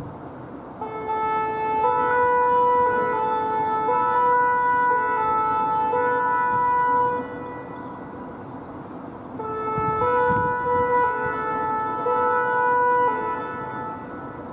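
Two-tone siren of a French fire brigade (BSPP) emergency vehicle on an emergency run, stepping between a low and a high note about once a second. It sounds in two spells, with a short lull about seven seconds in.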